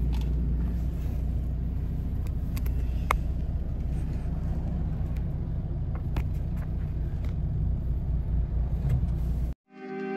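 Steady low rumble of road and engine noise inside a moving car's cabin, with a few faint clicks. It cuts off suddenly near the end.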